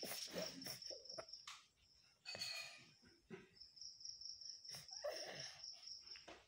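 Small child's soft sobbing breaths and sniffles between bouts of crying, with a brief whimper about two and a half seconds in. A thin, high insect-like trill comes and goes in the background.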